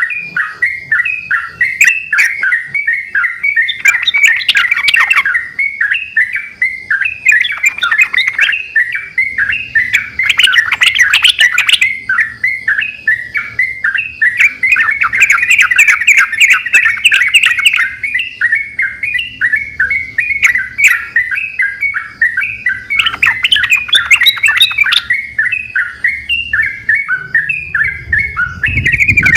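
Yellow-vented bulbuls singing in full voice, several birds answering one another in a dense, unbroken run of quick chirps, with louder, rougher passages about four, ten and twenty-three seconds in.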